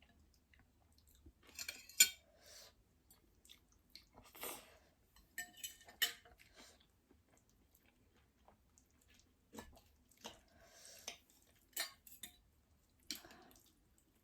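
Close-up eating sounds from a ramen meal: soft chewing and mouth noises in short bursts, with several sharp clicks of a utensil against the dish. The loudest click comes about two seconds in.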